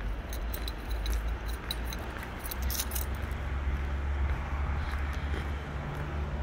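Small metal pieces jingling in quick, rhythmic ticks several times a second, mostly in the first three seconds, over a steady low rumble.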